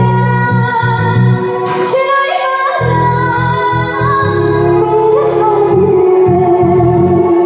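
A woman singing a melody over backing music with a steady beat, ending on a long held note with vibrato.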